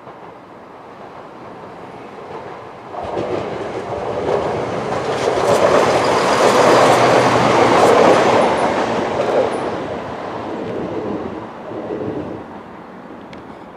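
Class 170 Turbostar diesel multiple unit passing close by. Its engine and wheel noise build from a few seconds in, are loudest about halfway through, then fall away as it recedes.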